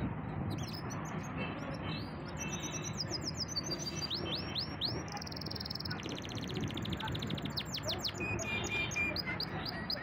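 Domestic canary singing a long varied song of fast trills and repeated high notes. It has a run of downward-sweeping whistles about four seconds in and a very rapid, buzzy trill around six seconds.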